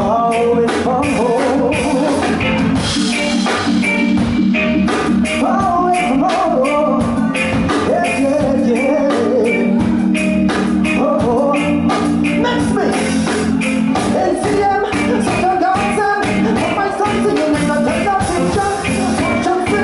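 Live reggae band (drum kit, bass and electric guitar) playing a song with a steady beat, a male vocalist singing the melody over it through the PA.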